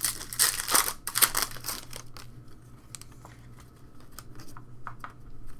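Trading cards and a foil pack wrapper being handled, crinkling loudly through the first two seconds, then softer rustles and light flicks as the cards are sorted.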